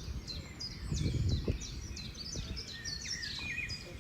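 Several small birds chirping, a dense overlap of short, quick notes that slide down in pitch, over a low rumbling background noise that swells briefly about a second in.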